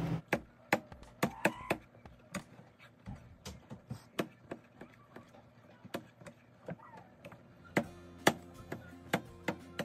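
Kitchen knife dicing raw button mushrooms on a perforated metal tray: a string of sharp, irregular knocks as the blade cuts through and strikes the metal, about two or three a second.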